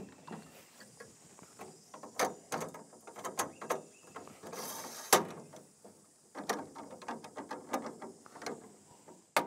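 Metal folding legs of a slide-out camper kitchen being folded up by hand: an irregular string of metallic clicks, knocks and rattles, with a sharp clack about five seconds in.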